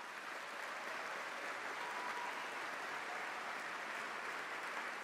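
Audience applauding, a steady and continuous wash of clapping.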